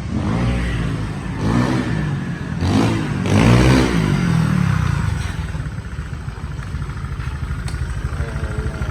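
Motor scooter engine revved in four quick blips, each rising and falling in pitch, then settling to a steady idle about five seconds in.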